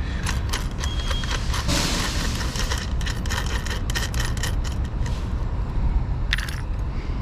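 Small metal hardware clicking and clinking as the threaded studs and nuts on an LED light strip are handled, with a brief scrape about two seconds in and a sharper clack near the end, over a low steady rumble.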